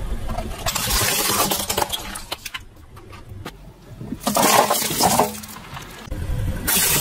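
Car tyre rolling over and crushing small hard objects, a plastic toy sword and a pile of hard-candy lollipops, with sharp cracks and crunching. The sound changes abruptly several times, as separate crushes follow one another.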